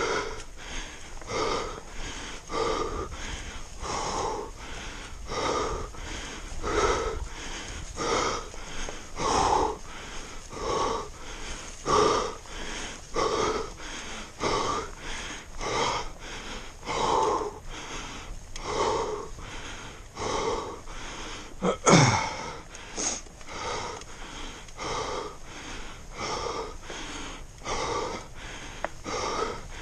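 A person's heavy, wheezing breathing from hard uphill effort, a rapid even rhythm of in- and out-breaths about every three-quarters of a second. One sharper, louder sound falling in pitch cuts in about two-thirds of the way through.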